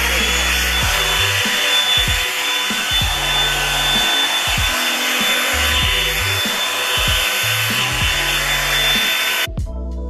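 Revlon One Step hair dryer and styler running on its high setting: a steady rush of blown air with a high motor whine, which has just wound up to speed at the start and cuts off suddenly near the end. Background music with a steady beat plays underneath.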